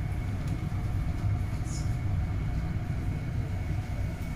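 Steady low mechanical rumble with a faint steady hum over it.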